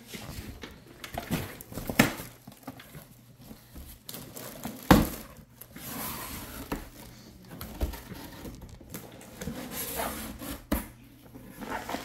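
A cardboard box and the plastic-wrapped items inside it being handled: rustling, crinkling packaging with scattered knocks of cardboard, the sharpest about five seconds in.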